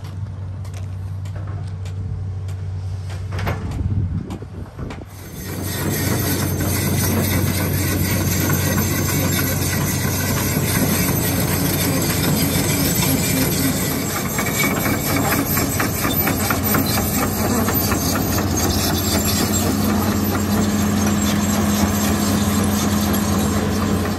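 Hitachi Zaxis 200 hydraulic crawler excavator's diesel engine running close by, with a dense metallic clatter. It starts as a lower hum and turns much louder about five seconds in.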